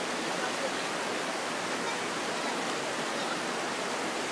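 Shallow rocky creek flowing steadily, an even rush of running water.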